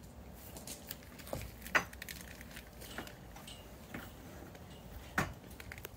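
Scattered light clicks and knocks of hands handling objects, with two louder knocks, one about two seconds in and one near the end, over a low steady outdoor background.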